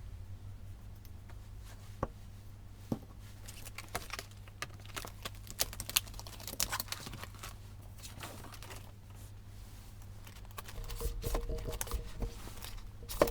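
Scattered small clicks, taps and paper rustles of stationery and paper being handled at a desk, sped up to double speed; the strokes come thickest in the middle.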